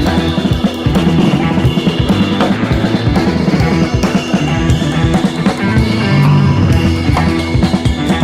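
Rock music with drums, bass and guitar.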